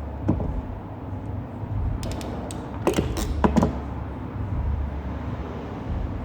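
Hand crimping tool clicking and creaking as terminals are crimped onto wires: one click, then a few light ones, then a tight cluster of louder sharp clicks about three seconds in. A steady low rumble runs underneath.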